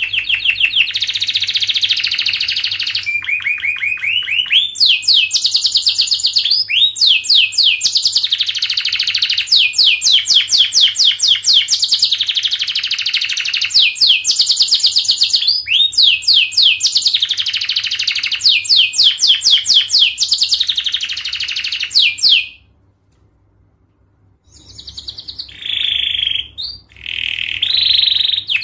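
Domestic canary singing a long song of fast, tightly spaced trills and rolls. The song breaks off for about two seconds about three quarters of the way through, then starts again.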